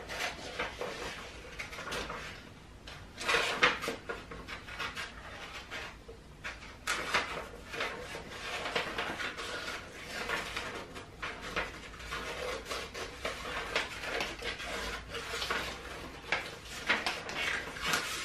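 Scissors snipping through a sheet of paper in many short, irregular cuts, with the paper rustling as it is twisted and turned to follow curved drip shapes.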